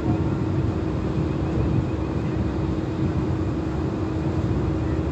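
Steady machinery hum of a large cruise ship, a constant single tone over low rumble, with wind noise on the microphone on the open deck.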